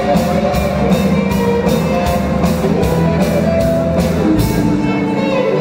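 Live rock band playing: electric guitars, bass guitar and a drum kit, with steady cymbal strokes that drop out about four and a half seconds in.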